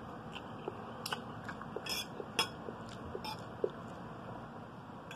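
Close-up chewing and smacking of a mouthful of egg noodles, heard as scattered short clicks, with a metal fork clinking on a plate.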